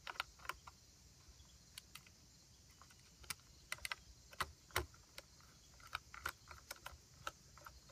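Screwdriver working Phillips-head screws into an anodized metal holster adapter: scattered faint, sharp clicks and ticks at an uneven pace.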